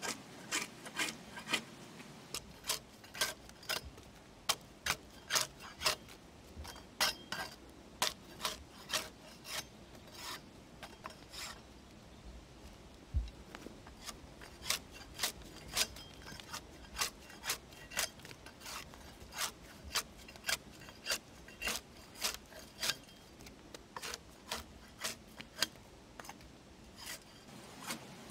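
A long-handled debarking tool scraping bark off a felled conifer log in short, sharp strokes, about one to two a second with an uneven rhythm.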